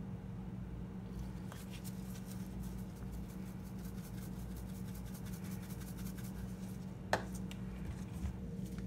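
Dried thyme leaves shaken from a plastic spice jar's sifter cap onto raw chicken, a dense run of fine rapid rattling and pattering ticks, ending with one sharp click about seven seconds in, under a steady low hum.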